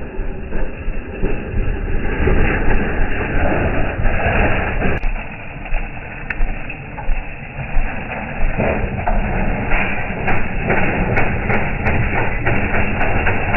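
Mini bike's small engine running, a continuous rough rumble with many quick uneven knocks.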